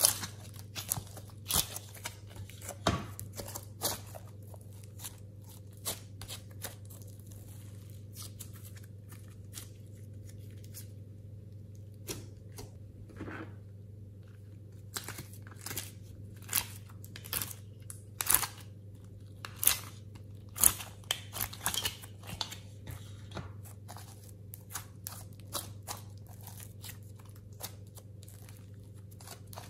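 Slime and clay squeezed, folded and stretched by hand, giving irregular sharp sticky clicks and pops, with a quieter spell about a third of the way in. A steady low hum runs underneath.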